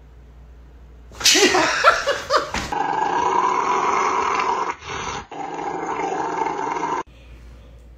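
A large dog growling in protest while its paw is scrubbed in a cup-style paw washer. A few short yips about a second in, then a long steady growl with a short break in the middle, cut off abruptly near the end.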